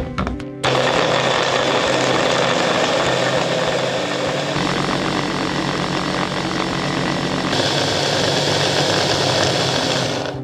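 Hand blender's electric motor driving a chopper attachment, a steady whirring as the blade grinds flour, sugar, almond powder and butter into crumbs. It starts about half a second in and stops just before the end.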